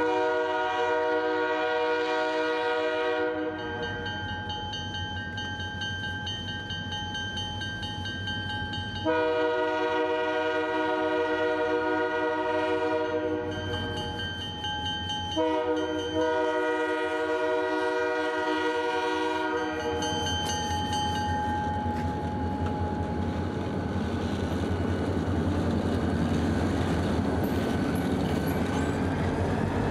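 Horn of an SD40-3 diesel locomotive sounding three long blasts as the train approaches a grade crossing. About twenty seconds in, the lead locomotives pass close with engine rumble and the clatter of wheels over the rail joints.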